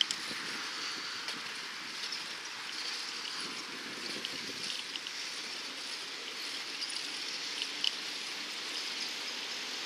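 Steady hiss of riding along a paved street, tyre and air noise, with a few light clicks and rattles.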